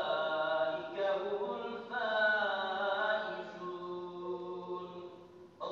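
Imam's melodic Quran recitation: a man's voice chanting in long phrases with wavering held notes, the last phrase settling on a low note that fades away near the end.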